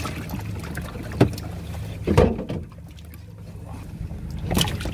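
Seawater pouring from a pump hose and splashing in a plastic basket of live shrimp, over the steady low hum of the fishing boat's machinery. A few sharp knocks come through, and the splashing dies down about halfway through.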